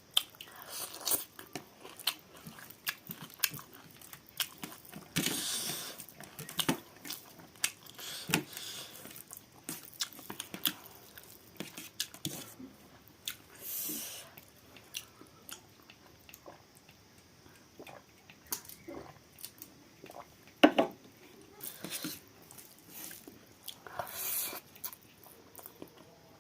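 Close-up mukbang eating sounds of a person biting and chewing chicken curry with rice: irregular wet mouth clicks and smacks, with a few louder bites.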